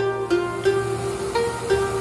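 Background music: a melody of single plucked-string notes, several a second.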